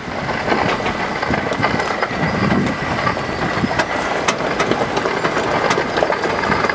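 Land Rover Defender driving over a rough rocky dirt track, heard from its open rear seats: a steady rumble with constant rattling and clatter from the body and frame.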